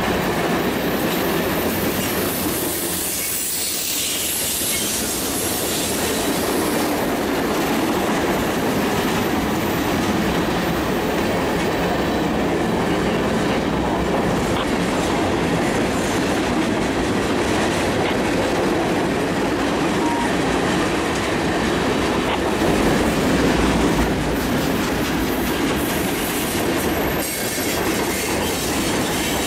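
Freight train of covered hoppers and boxcars rolling past close by, a steady noise of steel wheels clattering over the rails.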